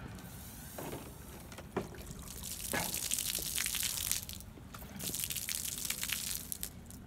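Liquid pouring and splashing onto pavement from a cut-open plastic bottle, in two spells of spattering, with a few light knocks as the bottle is handled.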